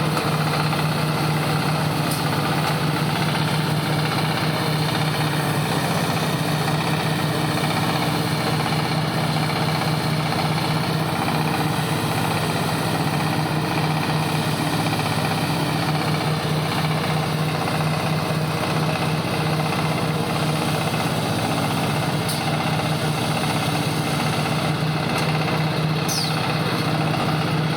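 Silage baler machine running with a steady low hum. A few faint clicks, and a short falling squeak near the end.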